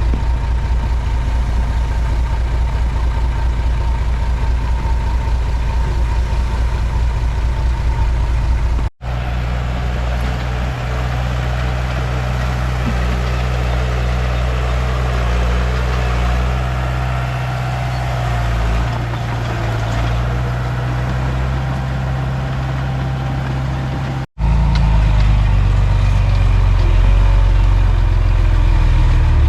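Komatsu D31P crawler bulldozer's diesel engine running steadily under work. The sound breaks off abruptly twice, about nine and twenty-four seconds in, and comes back each time with a different engine tone.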